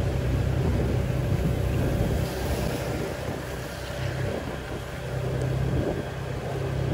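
Steady low rumble of a motor vehicle engine running, with road and wind noise over it; it eases off slightly about two seconds in.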